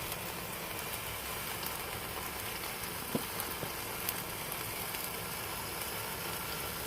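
Chicken cooking on a grill: a steady sizzling hiss with a few small pops.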